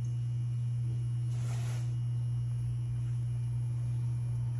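A steady, low, even hum with no change in pitch, and a brief soft rustle about a second and a half in.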